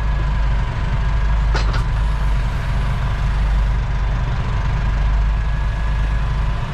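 Tractor engine running steadily, heard from inside the cab, with a faint steady whine above the engine note and a brief click about a second and a half in.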